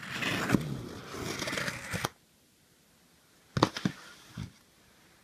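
Packing tape being ripped off a cardboard box, a rasping tear for about two seconds that stops abruptly, followed by a few short knocks from handling the box.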